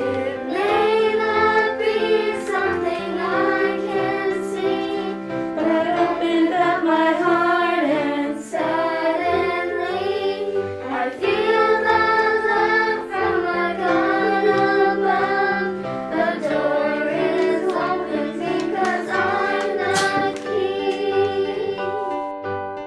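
Children's choir singing a song in phrases of a few seconds each, over sustained instrumental accompaniment.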